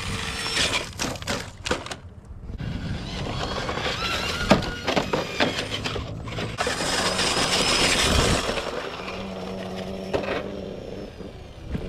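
Radio-controlled scale truck tumbling and crashing over dirt and rocks, a rapid series of knocks and clatters from its body and tyres hitting the ground.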